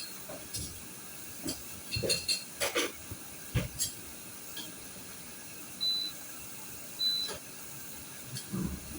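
Two short, high electronic beeps, about a second apart near the middle, over a steady hiss and scattered light clicks and knocks from handling the gear. The beeps come during the Wi-Fi setup of a Yoosee security camera.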